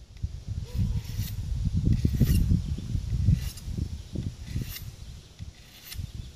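Knife blade drawn along the small sharpening stone on a Mora Bushcraft Black's sheath: five scraping strokes, about one a second, over a low rumble.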